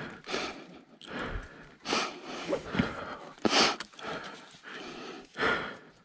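A person breathing hard after exertion: a series of heavy breaths, roughly one a second.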